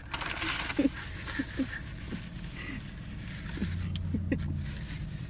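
Steady low hum of a car engine idling, heard inside the cabin, with a brief breathy noise about half a second in and faint murmurs.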